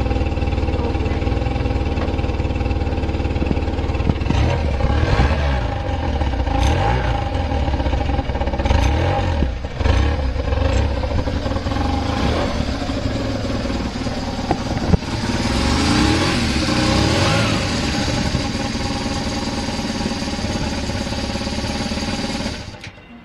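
BMW R1100RS air- and oil-cooled boxer twin idling, with several throttle blips revving it up and back down. A sharp click comes about fifteen seconds in, and the engine is switched off near the end. The idle is steady, with no abnormal noises.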